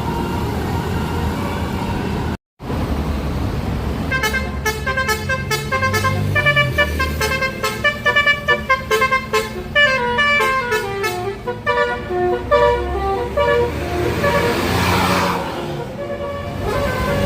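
A bus's basuri telolet horn, a set of electric horns tuned to different notes, playing a fast tune of short stepped notes over the low running of the bus engine. A few held horn notes come first, and near the end a swelling rush of noise.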